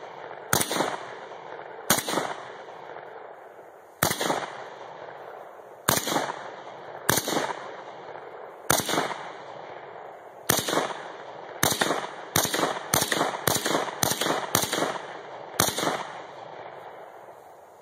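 AK-pattern rifle fired shot by shot, about fifteen single shots, each sharp crack trailing off in an echo. The shots come every second and a half to two seconds at first, then speed up to about two a second past the middle before slowing again.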